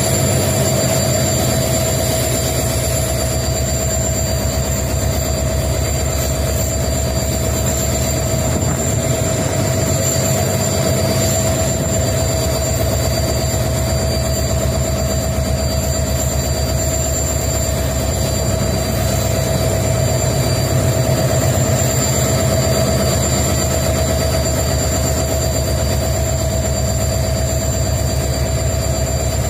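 Twin EMD WDG4 (GT46MAC) diesel-electric locomotives running steadily: the deep, evenly pulsing rumble of their two-stroke diesel engines with a steady high-pitched hum over it.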